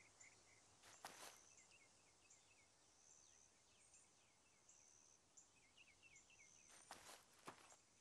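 Near silence: faint outdoor ambience with faint bird chirps and thin insect tones, and a few soft rustles about a second in and twice near the end.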